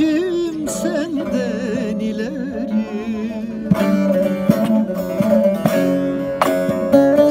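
Bağlama (long-necked Turkish saz) strummed and plucked, playing an ornamented Turkish folk-song melody over its steadily ringing drone strings, with two heavier strums in the second half.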